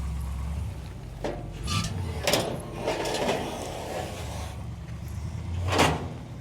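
A handful of separate clunks and knocks over a low, steady engine rumble, the loudest near the end, from a car trailer as the car comes down off it.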